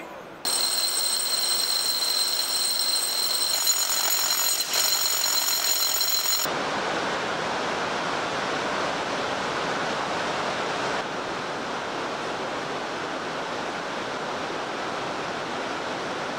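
Steady rush of the underground river echoing through the cave, an even roar of water. For the first six seconds a shrill, high ringing tone lies over a hiss and cuts off abruptly.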